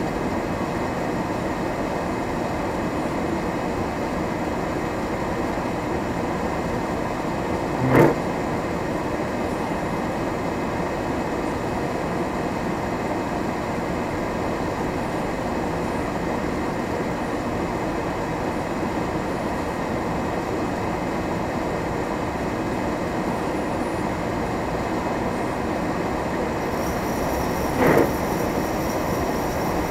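Steady running noise of a vehicle driving on a snow-covered road, engine and tyres heard from inside the cab. A short sharp knock comes about eight seconds in and another near the end.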